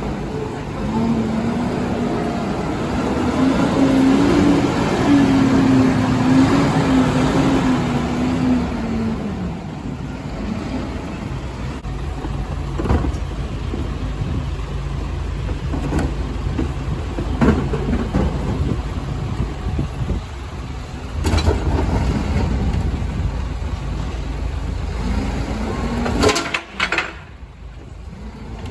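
Rear-loader garbage compactor truck. First its diesel engine pulls away, the pitch rising then easing. Then it runs at a steady low idle while plastic wheelie bins knock against the rear bin lifter, and near the end there is a loud clatter as the lifter tips the bins into the hopper.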